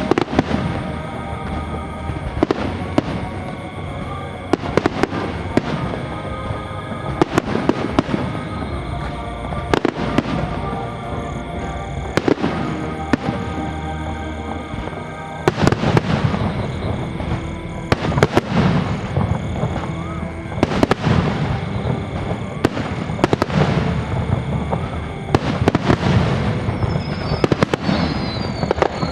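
Fireworks display: shells bursting in a steady run of sharp bangs and crackles, coming thicker in the second half, with music playing underneath.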